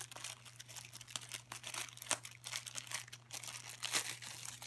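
Thin plastic wrapping crinkling and crackling as hands pull it apart. The crackles come in irregular bunches, with the sharpest about two seconds in and again near four seconds.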